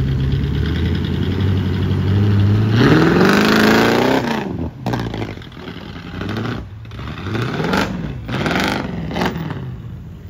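Square-body Chevy pickup's engine running, then revving hard about three seconds in as it pushes through a muddy creek crossing, followed by several shorter rev-ups and drops as the tyres spin in the mud, fading near the end.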